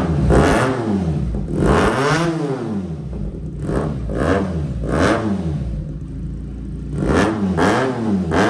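Benelli 300 motorcycle's parallel-twin engine revved in a series of quick throttle blips, each rising and falling in pitch, with a longer rev about two seconds in. It runs through an Akrapovic slip-on exhaust with the dB killer removed.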